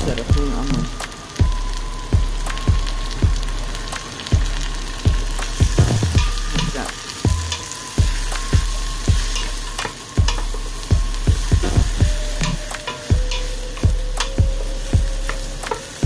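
Sliced peppers and onions sizzling in a stainless steel pot while a wooden spoon stirs them. Background music with a steady beat and a simple held tune plays over it.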